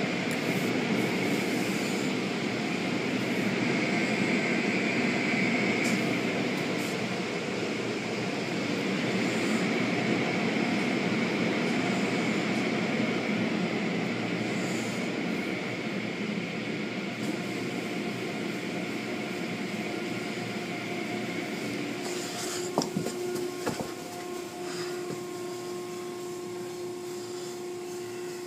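Steady rushing machinery noise of an automatic car wash with a high steady whine, which drops away about 22 seconds in; a few sharp clicks follow, then a quieter steady hum.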